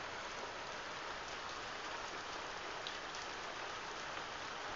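Steady rain falling on foliage and wet ground, an even hiss.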